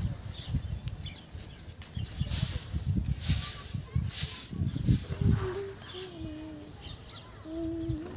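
Footsteps and phone handling noise while walking on a concrete rooftop, with a few brief rustles. Faint wavering calls in the background from about five seconds in.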